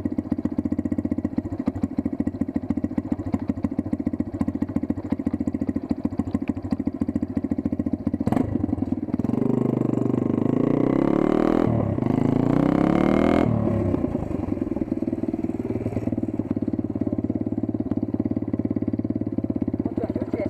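Dirt bike engine idling with a quick even beat, then revved up twice about halfway through, the pitch rising and dropping each time, before settling back to idle.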